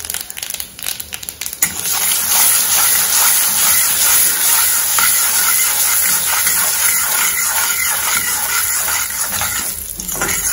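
Hot oil in a kadai sizzling as mustard seeds splutter and urad dal fries in a tempering. A flurry of pops in the first second or two, then a steady sizzle with scattered crackles.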